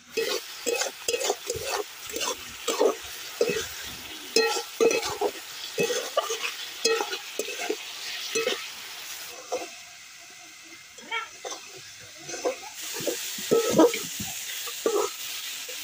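A metal spatula scrapes and stirs diced vegetables in an aluminium kadai in quick, irregular strokes over a steady frying sizzle. There is a short lull about two-thirds of the way through.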